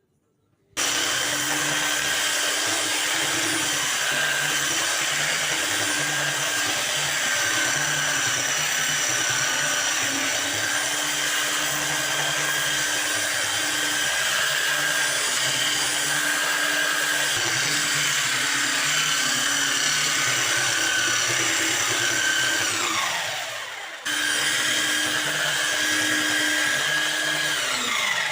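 Electric power tool motor running at steady speed. It winds down with a falling pitch a little before the end, cuts straight back in at full speed, then winds down again.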